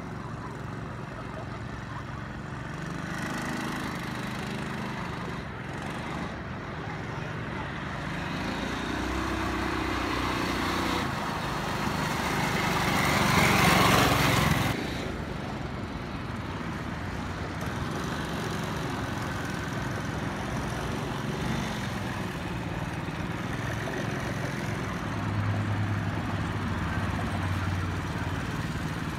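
Small 212cc single-cylinder ATV engine running, its pitch rising and falling as the throttle is worked. Around the middle a loud rushing noise builds for a few seconds, then cuts off suddenly.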